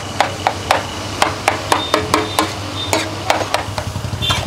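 Metal spatula and slotted ladle clanking and scraping against a large flat steel tawa as street-stall noodles are tossed and mixed. It is an irregular run of about a dozen sharp metallic strikes, some ringing briefly, over a steady low hum.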